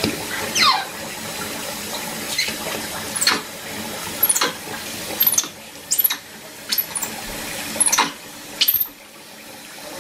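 Kitchen tap running steadily into a stainless steel sink with water splashing, broken by repeated short, high squeaks that drop steeply in pitch, roughly one a second.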